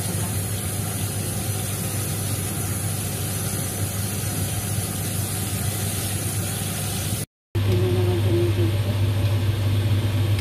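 Kitchen tap running onto watercress in a wire-mesh strainer over a steady low hum. The sound cuts out for a moment about seven seconds in, and the hum comes back louder.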